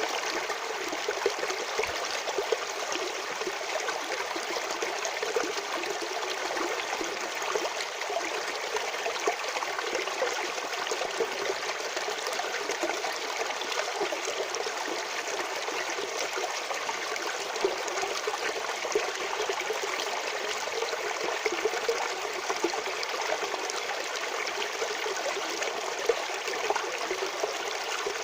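Natural stream water flowing steadily, an even rush with small irregular splashes throughout.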